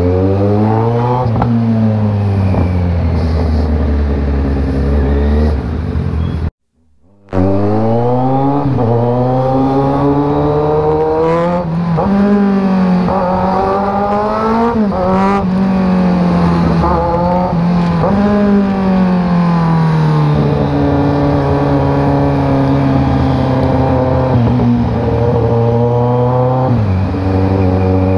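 Kawasaki Z900 inline-four engine running through a new Orion shorty slip-on exhaust with a 61mm mid-link. It revs up and eases off again and again, the pitch climbing and falling back, then holds steadier for a while. The sound cuts out for under a second about six and a half seconds in.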